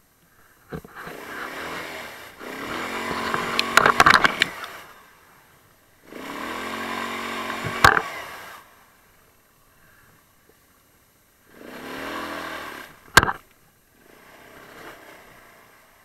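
Taotao 150cc ATV engine revved in five bursts of one to three seconds each, the last one fainter, as the quad tries to pull itself out of being stuck in mud. Sharp knocks come near the top of several of the revs.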